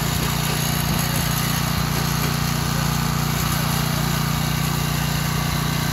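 Small petrol engine of a portable rail-mounted track maintenance machine running steadily at constant speed.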